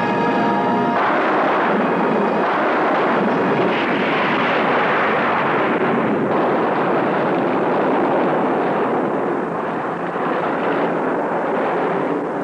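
Film sound effect of a long, continuous explosion roar that takes over about a second in as the music drops out, easing slightly near the end.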